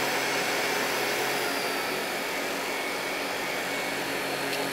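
Tineco Pure One S12 cordless stick vacuum running steadily with its power brush head on a wood floor: a high motor whine over a steady rush of air.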